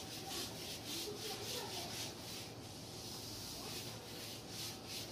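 Whiteboard eraser rubbing across a whiteboard in rapid, repeated back-and-forth strokes, wiping off written marker notes.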